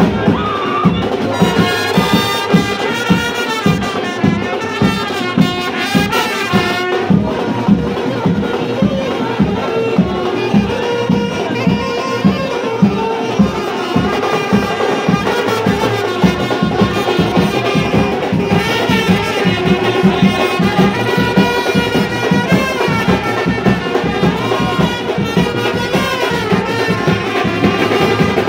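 Street brass band playing a lively tune, trumpets and other horns over a steady drum beat.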